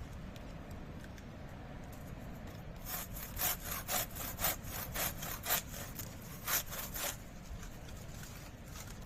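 Hand saw cutting wood: a run of quick back-and-forth strokes, about four a second, starting about three seconds in and stopping about seven seconds in.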